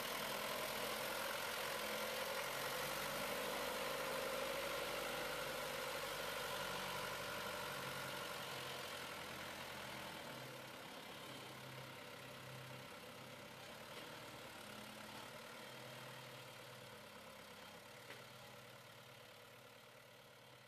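John Deere 2650 tractor's diesel engine running as the tractor drives off, fading steadily through the second half as it moves away.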